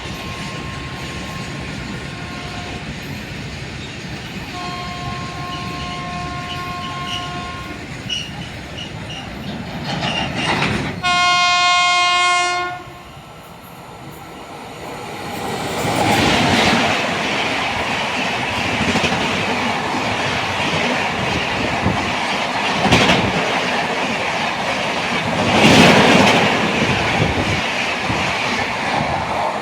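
Express train approaching and running through at speed: its two-tone horn sounds faintly twice, then one loud horn blast of about two seconds, then a loud steady rush of the passing train with wheels clattering over the rail joints.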